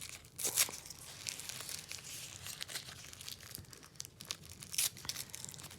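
Plastic or paper wrapping crinkling and tearing as a small packaged item is unwrapped by hand, with louder rips about half a second in and near the end.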